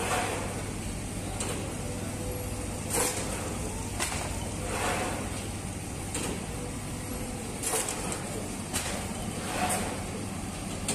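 Automatic sangak bread dough machine running: a steady mechanical hum from its motor and rollers, with sharp metallic clacks about once a second as it works the dough.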